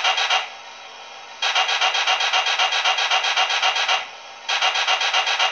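MTH PRR E6 model locomotive's onboard sound system playing a standing-still effect: rapid raspy pulses in bursts of about two seconds, separated by pauses of about a second.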